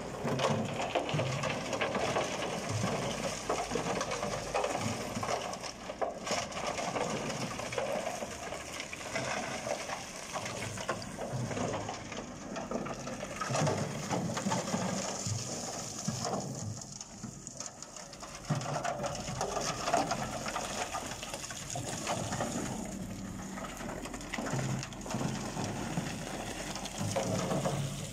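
Broken concrete chunks and slurry sliding out of a transit mixer drum and down its chute: a continuous irregular gravelly clatter with splashing, easing briefly about two-thirds of the way through.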